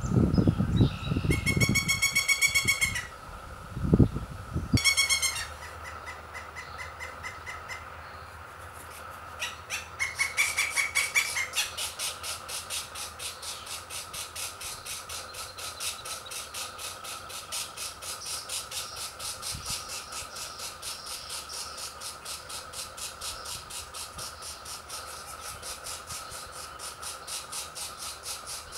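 Pileated woodpecker nestlings calling at the nest. A few short pulsed calls come in the first dozen seconds, then a continuous fast chatter of about five pulses a second. Low thumps come in the first few seconds.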